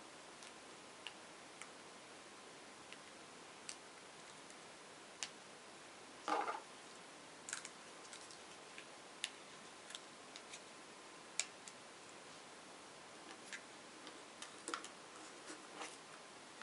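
Scattered small clicks and taps of plastic parts being handled while a battery holder is fitted to an acrylic robot-car chassis, with a short scraping rustle about six seconds in.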